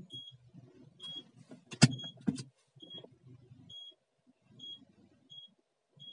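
Aftermarket two-sensor rear parking sensor (DOMO) beeping as the car reverses toward an obstacle: short high beeps about once a second, coming a little faster toward the end as the gap closes. Two sharp knocks about two seconds in are louder than the beeps.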